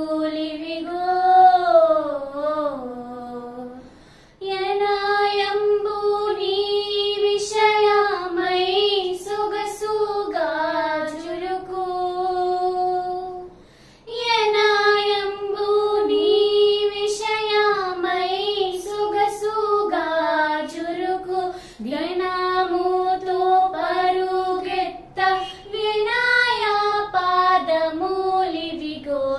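Two girls singing a Telugu Christian song (kirthana) together in unison, unaccompanied, in long melodic phrases with brief breaths about four and fourteen seconds in.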